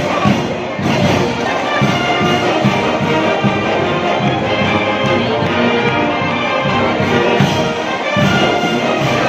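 Marching band music: brass instruments playing over a steady drum beat.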